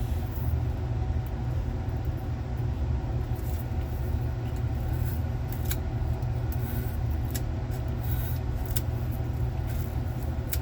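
Sealing sticker being peeled off a hard drive's top cover, a scattering of short clicks and crackles, over a steady low hum.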